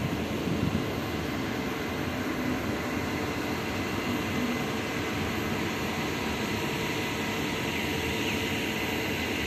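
Steady outdoor background noise: an even rush with a faint low hum underneath and no distinct events.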